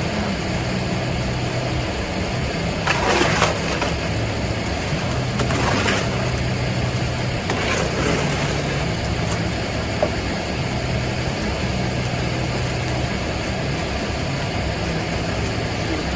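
An engine running steadily at a low, even speed, with three short scraping or swishing noises about 3, 5½ and 8 seconds in.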